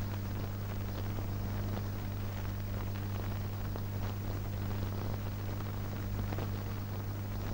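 Steady low hum with an even hiss: the background noise of an old film soundtrack, with no other sound.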